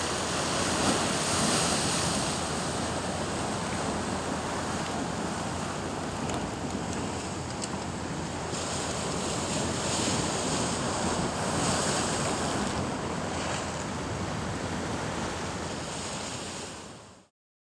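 Sea surf washing against a rocky shore, with wind buffeting the microphone, as a steady rushing noise that swells in places and cuts off suddenly near the end.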